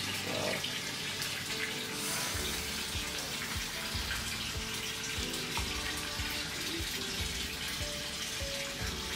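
Water running steadily from a tap into a tub.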